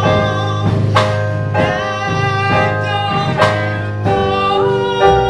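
Live music from an improvised comedy song: instrumental accompaniment with held chords and a sung line carrying on between lyrics.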